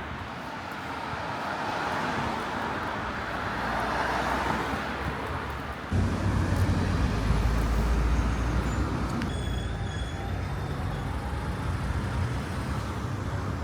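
Street traffic noise: vehicles going by, with a deeper low engine rumble that comes in suddenly about six seconds in.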